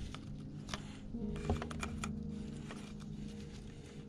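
Scattered light clicks and taps of hands working loose engine parts and their fittings, with one sharper click about a second and a half in, over a faint steady hum.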